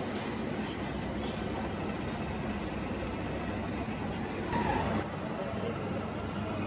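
Steady machine-shop machinery noise with a constant low hum, rising briefly louder about four and a half seconds in.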